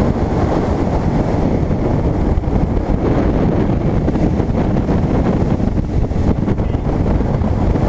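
Steady wind rush on the microphone of a bass boat under way at speed, with the boat's motor and water against the hull mixed underneath.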